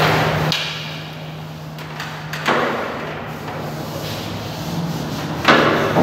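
Metal knocks and thumps as a man climbs a steel step ladder at the mouth of a concrete mixer drum: one about two and a half seconds in and a louder one near the end, over a steady low hum.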